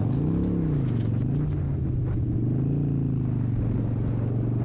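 Harley-Davidson Sportster's V-twin engine heard from the rider's seat, revving up and dropping back about half a second in, with a smaller blip just after, then running steadily.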